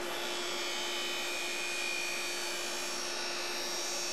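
Ice skate blade being cross-ground against the spinning grinding wheel of a skate sharpening machine: a steady grinding hiss with high ringing tones that shift in pitch, over the motor's steady hum.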